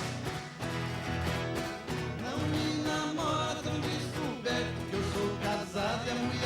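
Music with plucked guitar over a steady pulsing bass beat, and a gliding melody line about halfway through.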